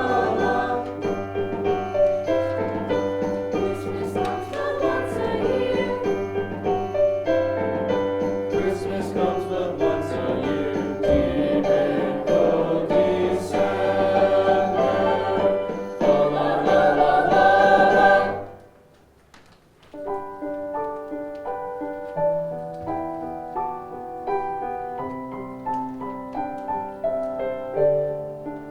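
High school choir singing a Christmas carol with accompaniment, ending about two-thirds of the way through. After a short pause, a piano begins playing.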